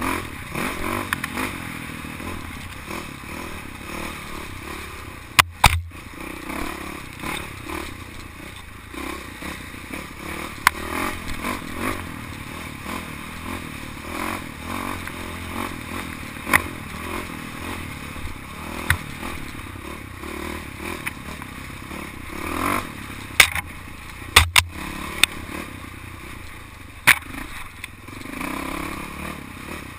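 Dirt bike engine running while riding a rough trail, the throttle rising and falling, with clatter and scraping from the ride. A few sharp knocks stand out, once about five seconds in and several times near the end.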